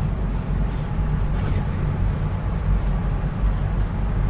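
Steady low rumble of a Fast Cat RoRo ferry under way, its engines and rushing water mixed with wind on the open deck.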